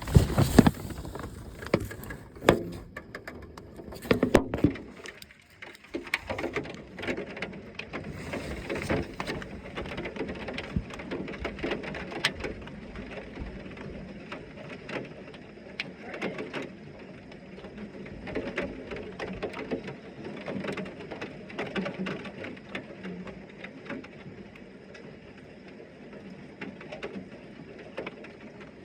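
Heavy rain falling in a thunderstorm, many drops striking nearby surfaces in a dense run of ticks. A few louder knocks come in the first few seconds, and the rain then settles to a steady level.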